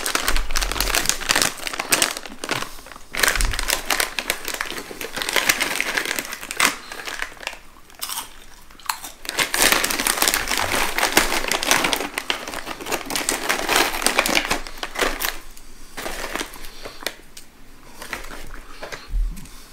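Plastic snack bag of Taro Net seaweed snacks crinkling loudly as it is handled and opened and a hand rummages inside for a piece. The crinkling comes in bursts with brief lulls.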